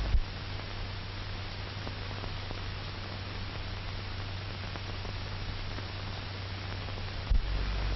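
Steady hiss and low hum of an old 1940 film soundtrack, with a faint click just after the start and another near the end.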